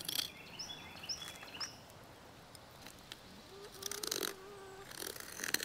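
Birds chirping with short high notes, then one lower drawn-out call about four seconds in. Faint scraping of a fillet knife on the gar's skin underneath.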